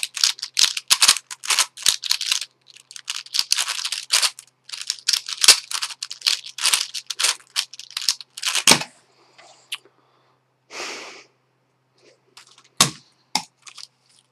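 White plastic Witeden 3x3x9 cuboid puzzle clicking and clacking as its layers are turned rapidly by hand, with a louder click near 9 seconds in, after which the turning stops. Then a brief rushing noise and a few single clicks as the puzzle is handled.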